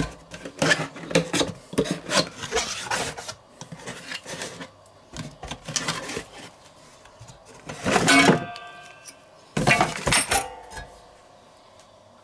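Cardboard box being opened and handled, with irregular rubbing and scraping of cardboard. Then come two knocks, about eight and ten seconds in, each leaving a short metallic ring, as the stainless-steel spiral potato slicer is taken out and set down on a wooden board.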